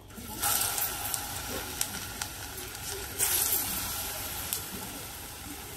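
Plantain strips frying in hot oil in a pan: a steady sizzle with crackling pops. The sizzle jumps up about half a second in and again around three seconds in, as pieces go into the oil.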